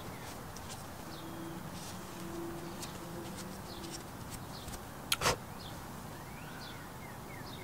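Small birds chirping in the background over steady low noise, with one brief sharp noise about five seconds in.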